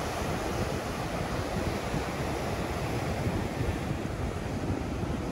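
Ocean surf breaking steadily on a rocky lava shore, with wind buffeting the microphone.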